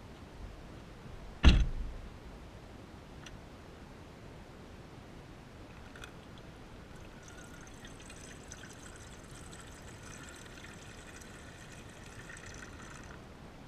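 A sharp knock about a second and a half in, then water poured steadily into a pot for about six seconds, stopping suddenly.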